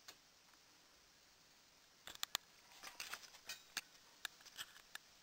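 High-voltage spark gap on a flyback-transformer supply, sparking irregularly. A dozen or so sharp snaps come at uneven intervals from about two seconds in, the loudest two close together near the start.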